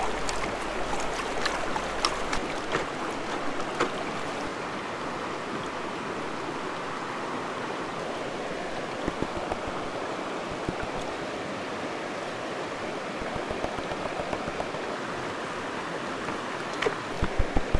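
Shallow creek running steadily. A few sharp clicks sound in the first few seconds, and short regular low thumps come near the end.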